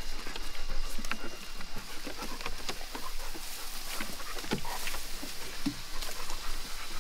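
Dogs close by making short, scattered noises, a string of brief sounds with small rising pitch sweeps and clicks.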